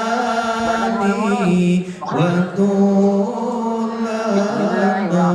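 A man chanting Quranic recitation in long held notes that waver and bend in pitch, with a short break for breath about two seconds in.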